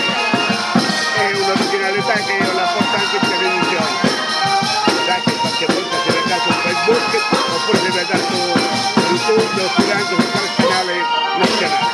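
Southern Italian folk group playing a dance tune, with tambourines beating out a steady rhythm under held melody notes.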